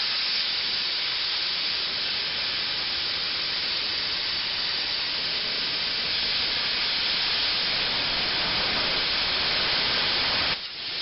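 Plasma cutter torch hissing steadily with its air blast and arc during a test cut on half-inch steel plate at high amperage. The hiss cuts off abruptly near the end.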